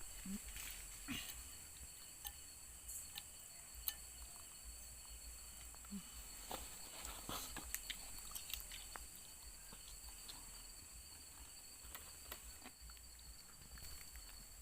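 Crickets trilling steadily in two unbroken high-pitched tones, with scattered small clicks and rustles over them.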